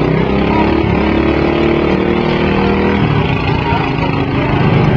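Riding lawn mower engines running and revving, their pitch shifting and changing about three seconds in.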